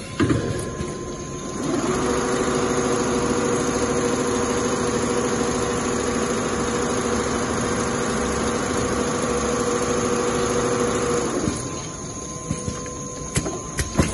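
Richpeace two-head CNC sewing machine stitching leather panels: both needle heads run at a steady even rate from about two seconds in until a couple of seconds before the end. A few sharp clicks sound near the start and near the end, when the stitching is not running.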